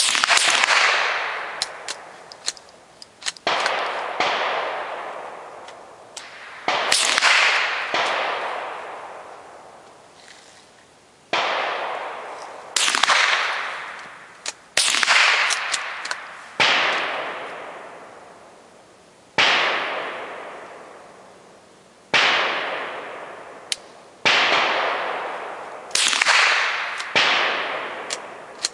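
.22LR rifle shots, about a dozen fired at uneven intervals of one to three seconds, each sharp crack followed by a long echoing decay. Small clicks sound between some of the shots.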